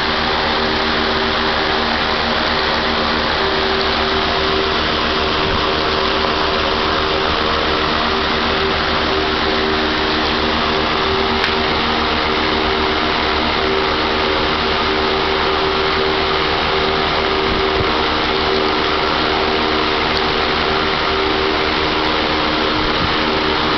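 Steady machine drone of a running fan-type machine, an even whirring noise with a couple of steady humming tones that does not change.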